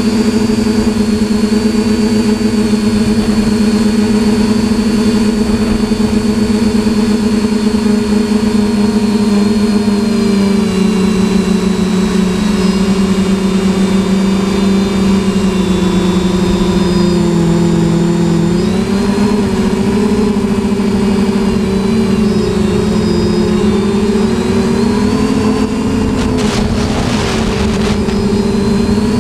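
TBS Discovery quadcopter's electric motors and propellers buzzing in flight, heard through the onboard camera's microphone with wind rumble. The pitch drops about a third of the way in, dips lowest a little past halfway, then rises again toward the end as the throttle changes, with a brief rush of air about three-quarters of the way through.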